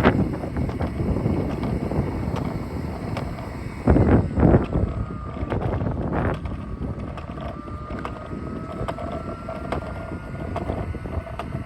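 Wind buffeting the microphone, with stronger gusts about four and six seconds in. From about five seconds on, a faint whine rises slowly in pitch.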